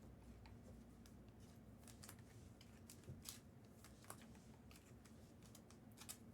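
Near silence with a few faint, scattered ticks and rustles of trading cards and packs being handled.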